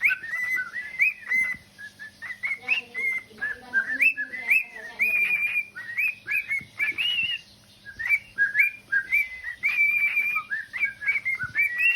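Pet cockatiel whistling its song: a quick run of short whistled notes gliding up and down, broken by a couple of brief pauses.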